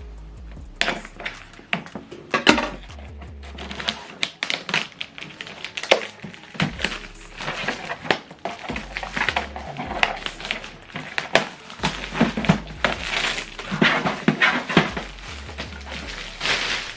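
A new HP DeskJet 2810e printer and its packaging being handled and unpacked: irregular rustling and many sharp clicks and knocks, over background music with a low bass line.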